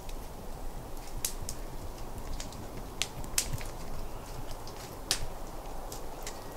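Outdoor ambience: a steady low rumble with irregular sharp clicks and ticks scattered through it, the loudest about three and a half and five seconds in.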